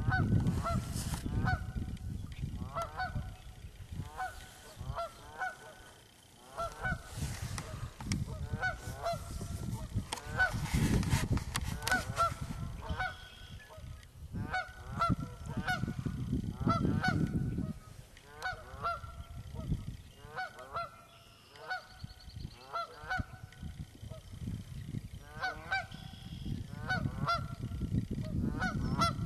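A goose honking over and over, short calls about a second or less apart, over swells of low rumble.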